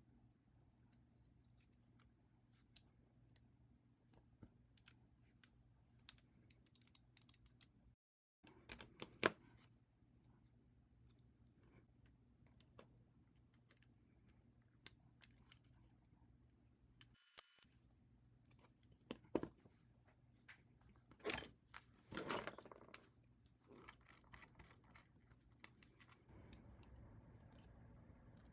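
Scattered small clicks and ticks of a plastic and metal toy robot being handled, with two louder snaps close together about three-quarters of the way through.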